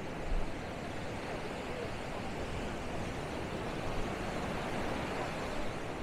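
Steady rushing wash of Caribbean surf breaking and running up a sandy beach.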